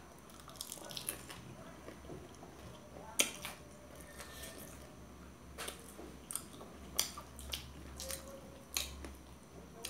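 Two people chewing fried momos, with soft mouth noises and scattered faint clicks of forks on steel plates.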